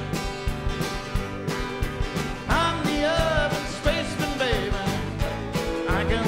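A band playing an upbeat song: a voice singing over guitar and a steady drum beat.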